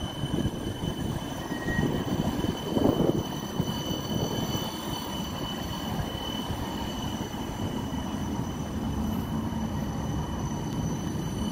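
A West Midlands Metro CAF Urbos 3 tram passing close by at low speed: a rumble of steel wheels on the rails, louder for a moment about two to three seconds in, with several steady high-pitched whines over it.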